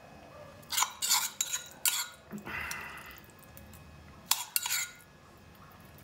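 A metal spoon clinking and scraping against a small stainless-steel cup while scooping spice paste out onto raw chicken pieces. A cluster of sharp clinks comes about a second in, then a short scrape, then a few more clinks past four seconds.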